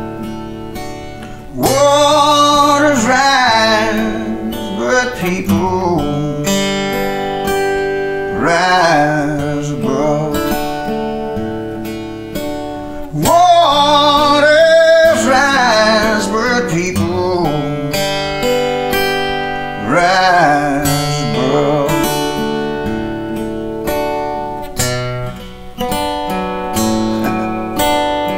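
Acoustic guitar strummed while a man sings long, wavering held notes in several phrases. The voice drops out near the end, leaving the guitar playing alone.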